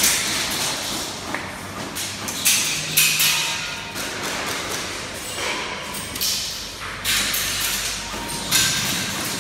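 Indoor airsoft game: repeated sharp knocks and thuds echoing in a large hall. These are semi-auto airsoft shots and BBs striking wooden barricades, among players' movements, with several louder bursts.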